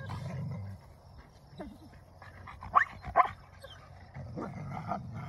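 Two wolfdog pups growling at each other in a squabble over possession of a toy: a low growl, two short sharp yips close together about three seconds in, then more growling near the end.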